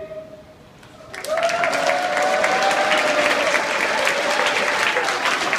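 The last held note of the music fades out, then about a second in an audience breaks into steady applause.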